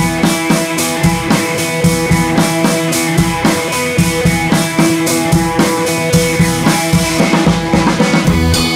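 Background music: a rock track with a steady drum-kit beat and guitar.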